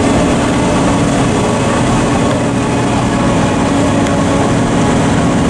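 Pikes Peak cog railway train running steadily, its engine and running gear making a loud, even drone with a steady hum, heard from inside the passenger car.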